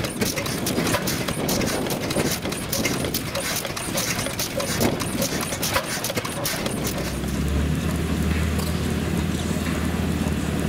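A fast, irregular clatter of sharp clicks and knocks, then about seven seconds in a steady low mechanical hum takes over.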